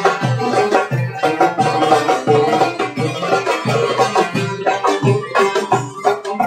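Instrumental Turkish folk music: a low drum beats a steady rhythm, about three strokes every two seconds, under a sustained melody.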